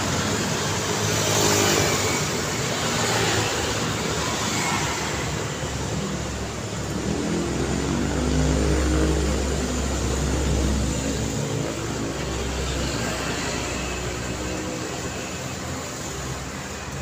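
Road traffic passing on a city street, mostly motorcycles with some cars. A swell of engine and tyre noise passes in the first few seconds, then a deeper engine hum builds in the middle and fades toward the end.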